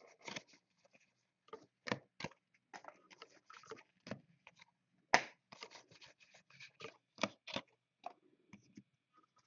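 Trading cards and pack wrappers being handled: irregular crinkles, clicks and scrapes as cards are slid and flicked one after another, with the sharpest snap about five seconds in.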